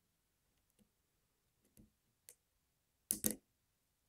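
Faint metallic clicks and ticks of a short hook pick working the pins of a Yale-keyway pin tumbler lock under light tension, with a louder double click about three seconds in.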